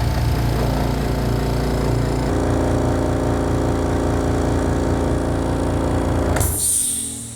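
Air compressor running with a steady, fast-pulsing motor drone, then shutting off abruptly about six and a half seconds in, followed by a short hiss of released air.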